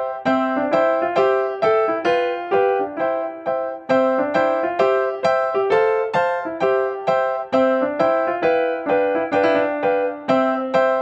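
Background music: a light keyboard melody of evenly spaced single struck notes that ring and fade, repeating a short tune.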